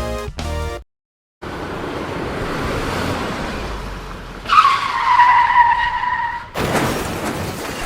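Music cuts off, then the running noise of a vehicle ride. About halfway a loud, high squeal sets in, dipping slightly in pitch at first and then holding for about two seconds.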